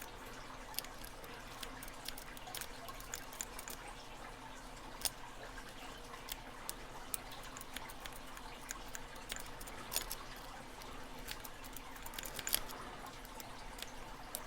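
Lock picking in a Master Lock Magnum 530 padlock: a pick working the pins in the keyway makes irregular light clicks and scratches, over a faint steady hiss.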